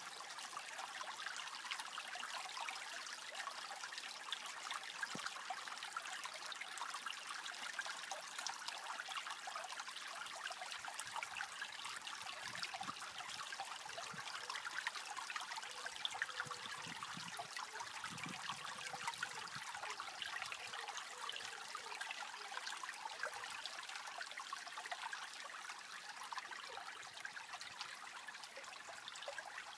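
Small shallow stream trickling over stones, a steady running-water sound.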